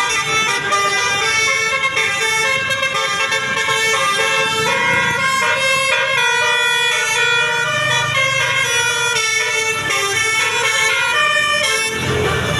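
Basuri 'telolet' multi-tone bus horn playing a tune, its notes changing every fraction of a second, loud and unbroken until it cuts off near the end.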